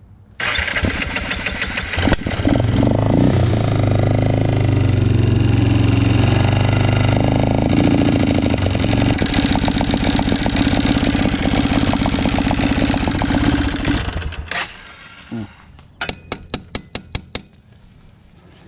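The Arctic Cat 375 ATV engine starts about half a second in and runs unevenly for about thirteen seconds, its revs shifting. It then dies away with a couple of sputters. Near the end comes a short run of about eight evenly spaced beats, about five a second.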